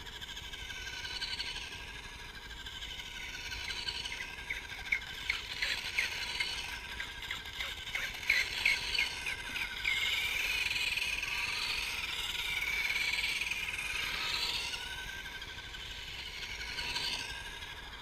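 Electric radio-controlled car motors whining, the pitch gliding up and down as they speed up and slow down, with a run of short sharp ticks in the first half.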